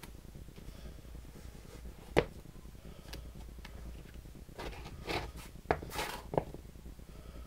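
A leather sneaker being put on and taken off a socked foot: one sharp knock about two seconds in, then a cluster of knocks and short scuffing rustles near the end as the shoe comes off and is set down on the floor.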